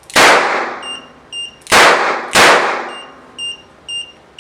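Three gunshots, each with a long ringing tail. The first comes at the start and two more come close together about a second and a half later. An alarm beeper starts shortly after the first shot and beeps steadily about twice a second, signalling the detected gunshot event.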